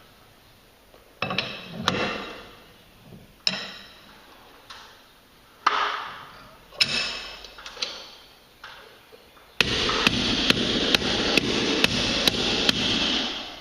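Hammer blows on the steel end coil of a garage door torsion spring, each strike ringing and fading, five spaced blows followed by a fast run of about three blows a second. The coil end is being beaten flat because it stuck out straight and kept the stationary cone from seating.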